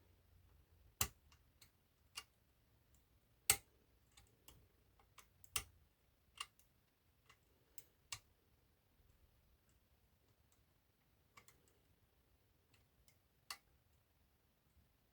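Sharp, irregular metallic clicks of a hook pick working the levers inside an eight-lever lever lock, a few loud ones among fainter ticks. They fall thickest in the first eight seconds and then thin out to a single click near the end.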